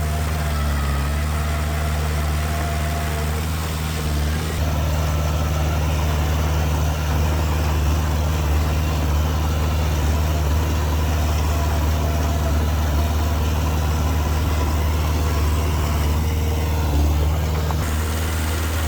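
Heavy diesel engine of earthmoving machinery running steadily at low revs, a deep even hum.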